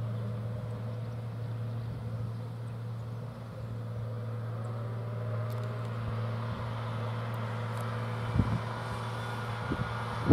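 Tractor diesel engine running at a steady pitch as it tows a Pöttinger silage wagon across the field. A few low thumps come in the last two seconds, the loudest right at the end.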